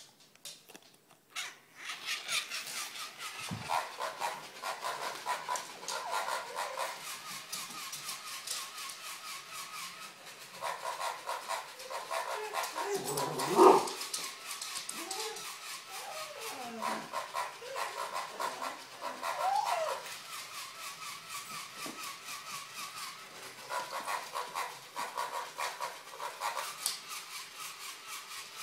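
A small battery-powered walking toy pig runs with a rapid mechanical clicking that stops and starts. A border collie gives one loud bark about halfway through, and makes a few short vocal sounds after it.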